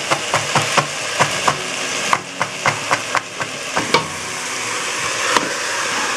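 Chef's knife chopping green onion on a plastic cutting board in quick, even taps about four a second, thinning out and stopping about four seconds in, over the steady sizzle of chicken and vegetables frying in a pot.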